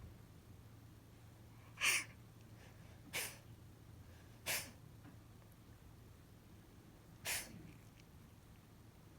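Calico cat sneezing four times in short puffs: three about a second apart, then a fourth after a pause of nearly three seconds.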